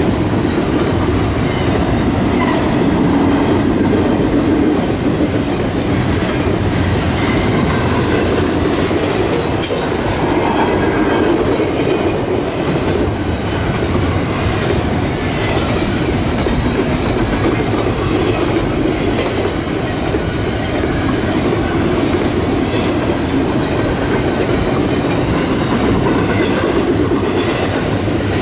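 Double-stack container train's well cars rolling past steadily, steel wheels rumbling on the rails, with scattered sharp clicks over the track.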